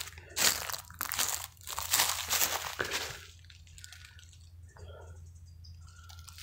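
Footsteps crunching through dry fallen leaves, a quick run of crackly steps for about three seconds, then much quieter.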